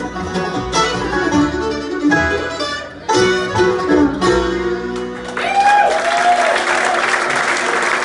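Acoustic bluegrass band (banjo, fiddle, mandolin, acoustic guitar and upright bass) playing the close of a tune, ending about five seconds in. Audience applause and cheering follow.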